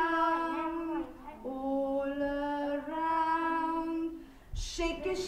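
A woman singing a slow children's action song in long held notes, in two phrases with a short break about a second and a half in. The singing stops near the end and a burst of noisy commotion follows.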